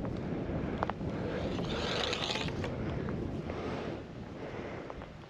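Wind buffeting the microphone: a steady rushing noise that swells in the middle, with a few faint clicks.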